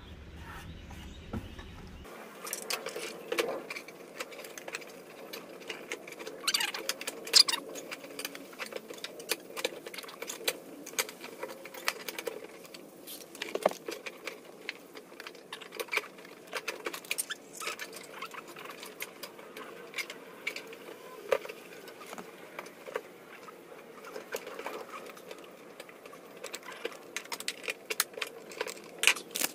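Irregular clicks, taps and light rattles of a car's fuel pump and sending-unit assembly, with its wiring and fittings, being handled and worked down into the fuel tank opening.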